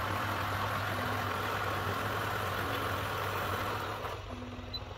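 Niche Zero conical-burr coffee grinder running as it grinds an 18 g dose of beans, a steady motor hum with a gritty grinding noise, which stops about four seconds in when the dose is done.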